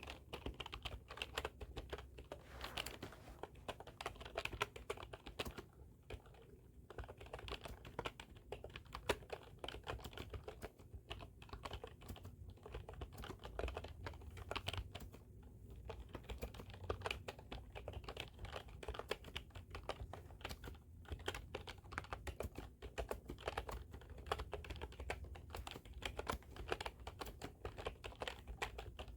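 Computer keyboard being typed on: a fast, continuous run of key clicks with a few brief pauses.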